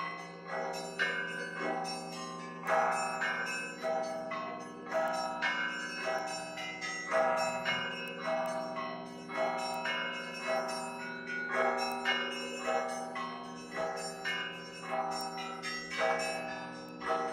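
Russian Orthodox monastery belfry bells being rung in a continuous rhythmic peal: smaller bells struck in quick repeating patterns, with a heavier strike about once a second, over the lingering hum of the larger bells.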